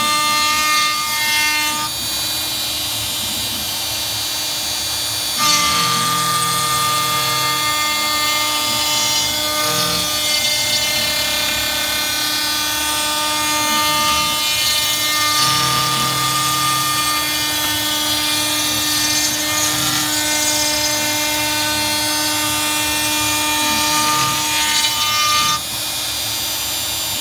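Shapeoko 3 CNC router's spindle whining steadily as its bit cuts through the edge of a plywood monitor bracket. The cutting noise gets louder about five seconds in and drops back shortly before the end.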